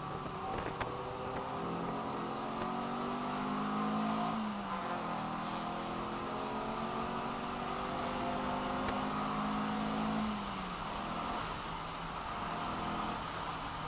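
Race car engine heard from inside the cockpit, rising in revs, dropping at an upshift about four and a half seconds in, climbing again and easing off near the end, over steady road noise on a wet track.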